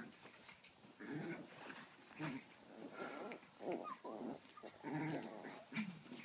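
Chihuahua puppy making a string of short, whiny bleat-like vocalisations while sucking on a plush toy.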